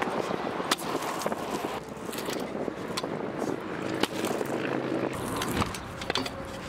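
Freestyle kick scooter rolling on rough pavement, with several sharp clacks as the deck and wheels strike the ground and concrete, more of them near the end.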